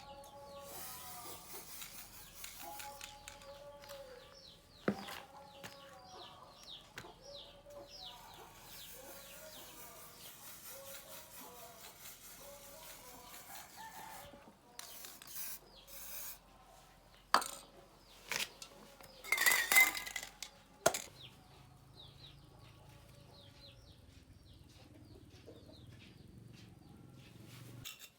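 Chickens clucking, with many short high chirps over them. A few sharp knocks and a brief burst of clattering, about two thirds of the way in, are the loudest sounds.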